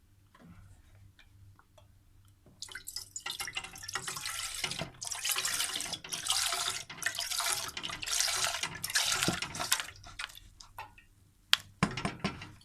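Milk being poured into a saucepan, splashing in uneven gushes for several seconds. A sharp clack of a utensil or container follows near the end.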